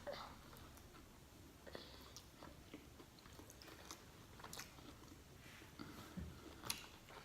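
Faint biting and chewing of a double cheeseburger: soft, scattered mouth clicks and smacks close to the microphone.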